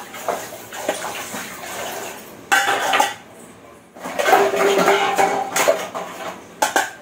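Steel dishes and utensils clinking and clattering as they are washed at a kitchen sink, with a tap running in two spells, a short one and a longer one.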